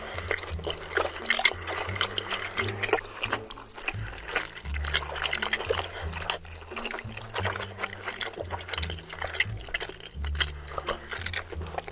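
Close-miked wet eating sounds: chewing and slurping of cheese-topped tteokbokki rice cakes, with many short sticky clicks and smacks, over background music with a steady bass line.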